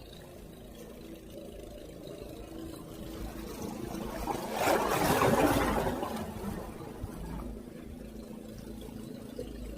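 Water splashing, with one louder surge about four and a half seconds in that lasts over a second and dies away, over a steady low hum.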